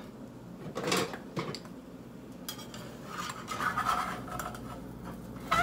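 A spatula scraping and tapping in a frying pan, with scattered light clicks, as an omelette is loosened and flipped.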